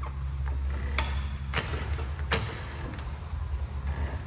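Sharp metallic clicks and knocks, four clear ones roughly two-thirds of a second apart, from work on a pickup truck's front suspension as a floor jack pushes the lower control arm up to seat a new lowering spring. A steady low hum runs underneath.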